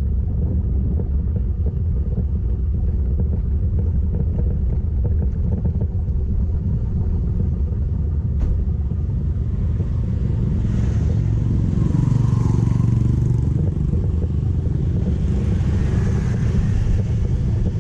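Motorcycle running at steady road speed, its engine drone mixed with heavy wind rumble on the rider's microphone.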